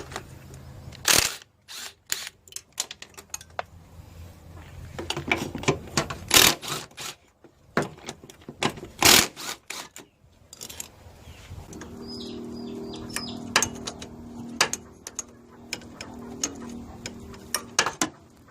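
Irregular sharp clicks and clinks of tools and metal parts being handled, with a steady hum joining from about twelve seconds in.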